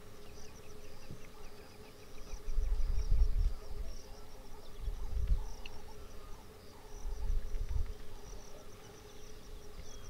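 Insects calling steadily in the wild, a high, fast, continuous chirping over a faint steady hum, broken three times by low rumbles that are the loudest sounds.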